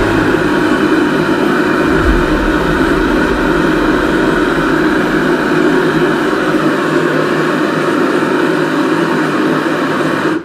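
Propane forge burner running steadily: a continuous rushing noise with faint, steady whistling tones. The lowest rumble fades out about two-thirds of the way through.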